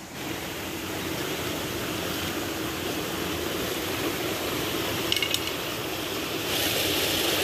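A small rocky stream rushing over a little waterfall, a steady rush of water that grows a little louder near the end. A brief high chirp-like sound about five seconds in.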